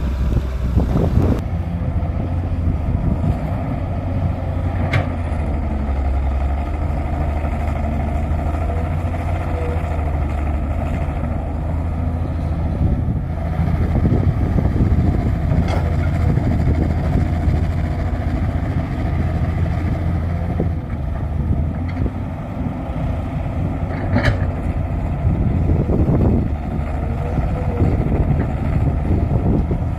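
Heavy diesel engines of hydraulic excavators running steadily while digging. Three brief sharp knocks come several seconds apart.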